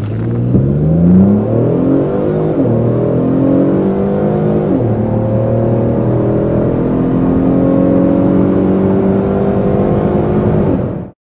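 Twin-turbo 3.5-litre EcoBoost V6 of a 2010 Ford Taurus SHO with a Corsa performance exhaust under hard acceleration, heard from inside the cabin. The engine note climbs, drops back briefly at two upshifts in the first five seconds, then rises steadily again.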